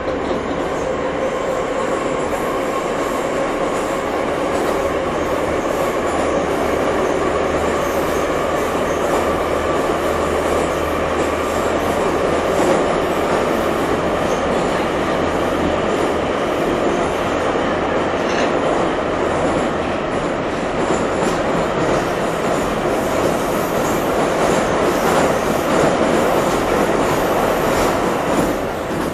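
Moscow Metro carriage interior with the train running between stations: a loud, steady rumble and rattle of the car, with a steady whine held underneath.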